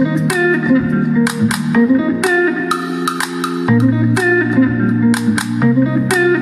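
Music playing through a pair of bookshelf speakers driven by a TDA7266 2x7W amplifier board: a groove track with plucked electric guitar, bass and a steady beat of sharp drum hits, played loud.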